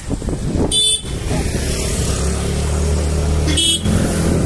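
Town traffic heard from a moving two-wheeler: engine running under road noise, with two short horn toots, one about a second in and one near the end. A steady low engine drone sets in about two seconds in.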